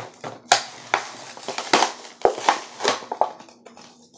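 A Hot Wheels Monster Trucks cardboard-and-plastic blister pack being torn open by hand: cardboard ripping and plastic crinkling in a string of irregular sharp crackles.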